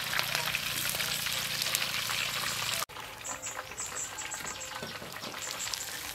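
Hot oil crackling and sizzling around a pork belly roll deep-frying in a wok. About three seconds in it cuts off abruptly, leaving a quieter background with short high chirps repeating.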